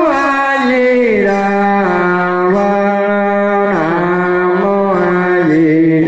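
A single voice chanting a Vietnamese Buddhist chant in long held notes that step and slide from one pitch to the next without a break.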